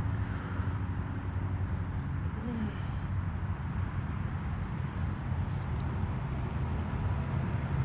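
Cat purring, a steady low rumble, with a steady high-pitched whine over it.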